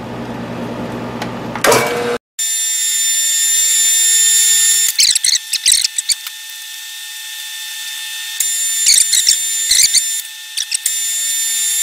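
Milling machine spindle running with a steady high whine as an end mill held in a drill chuck cuts a shallow counterbore for a screw head into a metal part. The whine sets in after a brief cut-out about two seconds in, and the cutter chatters and squeals in two spells, around the middle and near the end.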